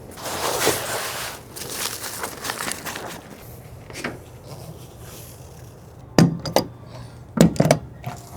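Rustling and handling of camp gear, with a few sharp knocks and thunks near the end.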